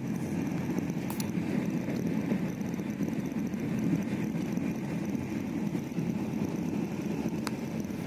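Steady running rumble of a moving passenger train, heard from inside a closed air-conditioned coach. A light click comes about a second in and another near the end.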